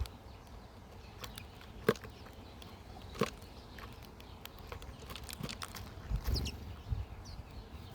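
Wild birds at a backyard feeder: scattered sharp taps and clicks, a couple of short high chirps about six seconds in, and a few low thuds near the end.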